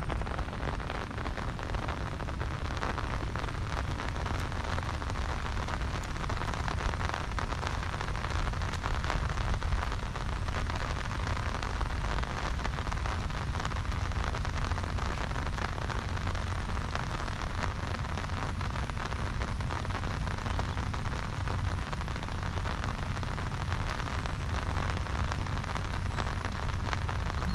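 Steady heavy monsoon rain: a dense, even hiss of falling rain with many small drop impacts, over a low rumble.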